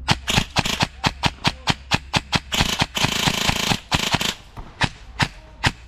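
Airsoft guns firing: a quick run of sharp pellet shots, about five or six a second, that thickens into a rapid near-continuous rattle in the middle and thins out to single shots near the end.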